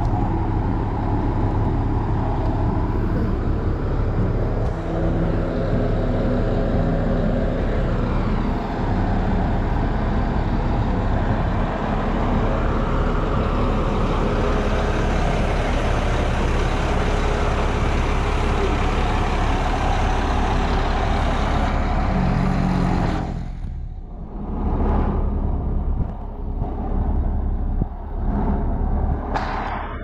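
Crawler bulldozer's diesel engine running loud and steady while the dozer pushes soil with its blade. About three-quarters of the way through the sound drops off sharply, then comes back in a few short surges.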